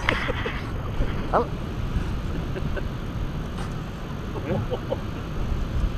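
Wind buffeting the microphone as a low, gusty rumble, with a short rising squeak about a second and a half in and a few brief squeaks near the end.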